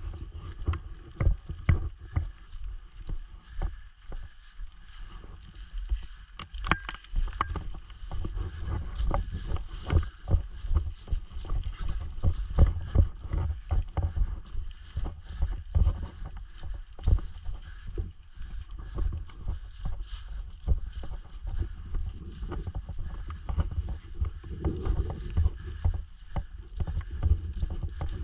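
Footsteps through fallen leaves, with irregular low thumps and knocks from gear and the body-worn camera jostling as the player walks.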